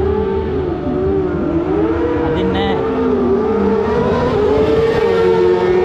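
Several sport motorcycle engines running and revving together, their overlapping tones rising and falling.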